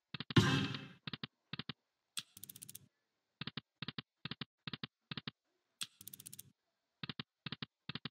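Computer key tapped over and over, each press a pair of sharp clicks, in bursts of several presses at about five a second. A brief louder rushing burst comes just after the start.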